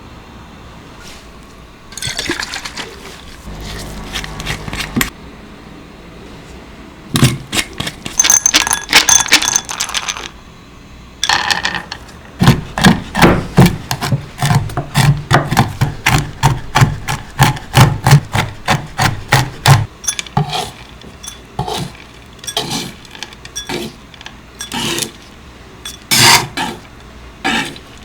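A utensil scraping and clinking against a mixing bowl while dough ingredients are mixed by hand. In the middle comes a run of quick, even strokes, about three or four a second, then slower scrapes and knocks.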